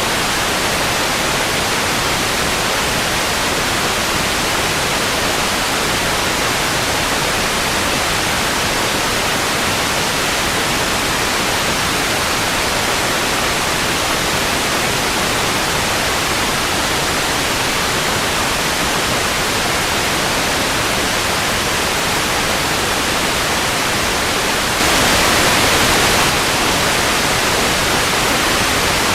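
Television static: a steady, even hiss, with a brief louder surge lasting a second or so near the end.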